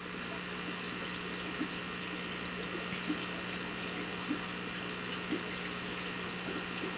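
Steady running water from aquarium filtration, with a low electrical hum from pumps and a few faint short ticks.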